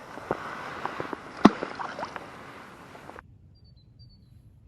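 Handling noise: a watery hiss with a series of knocks, one sharp loud knock about a second and a half in. The sound cuts off suddenly a little after three seconds, leaving near quiet with a few faint high chirps.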